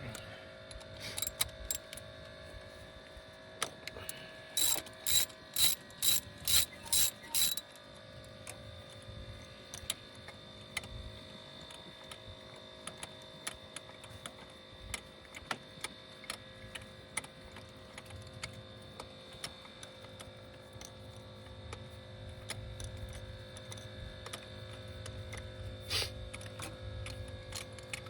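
Ratchet wrench turning a spark plug socket in the plug well, a run of about seven quick clicking back-swings about five seconds in, then scattered lighter clicks and taps.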